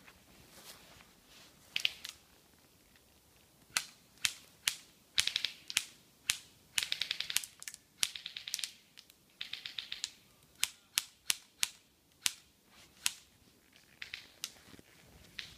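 Airsoft guns firing back and forth: sharp single shots and short rapid bursts, starting about four seconds in.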